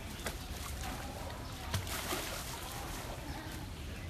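A tiger entering a pool: a thump a little under two seconds in, then a short splash of water.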